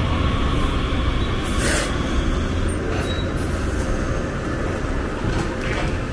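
San Francisco Muni light rail train running, a steady low rumble that eases slightly after the first second and a half, with a short hiss about 1.7 s in and a few light clicks.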